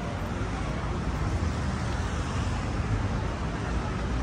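Steady outdoor city ambience of road traffic noise, with an uneven low rumble underneath.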